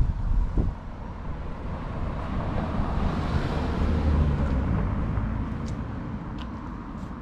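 A car passing by, its noise swelling to a peak about halfway through and fading away.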